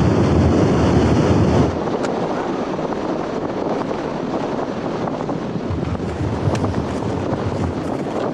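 Wind buffeting the camera microphone. A heavy low rumble for the first second and a half or so, then a steadier rushing hiss.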